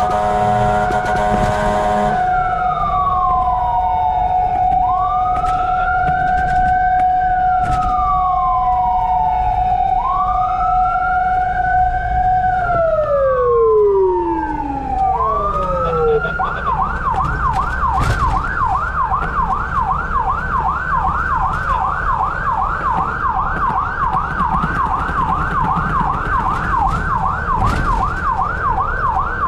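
Fire truck sirens on an emergency run: a horn blast cuts off about two seconds in, then a slow wail rises and falls over a steady siren tone that winds down in pitch near the middle. From just past halfway the siren switches to a rapid yelp, with an engine rumble underneath.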